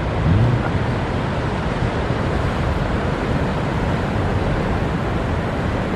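Steady rushing noise of waves and surf, an even wash with a low rumble underneath and no distinct engine note.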